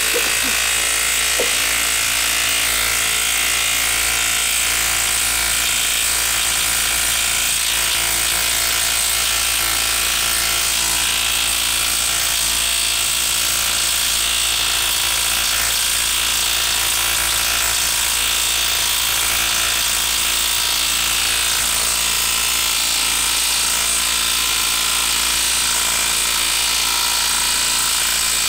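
Makita cordless impact wrench hammering without a break as it drives a 5.5-inch screw into a log. The wood is moist, which the user blames for heavy friction that makes the drive slow.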